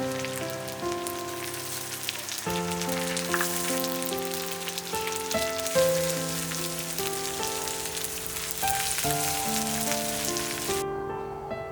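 Gentle instrumental background music with slow, held notes over a steady hiss that stops abruptly near the end, leaving only the music.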